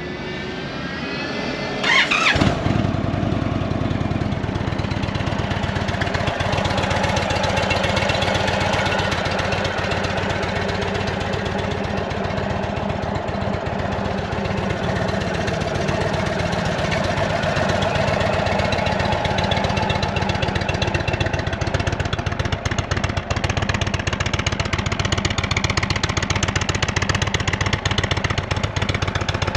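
Indian Thunder Stroke 116 cu in V-twin motorcycle engine starting about two seconds in, then settling into a steady idle.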